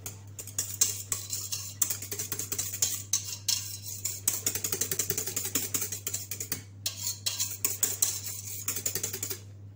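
Hand whisk stirring batter in a stainless steel bowl: quick, rhythmic clicking and scraping of the wires against the metal. It stops just before the end.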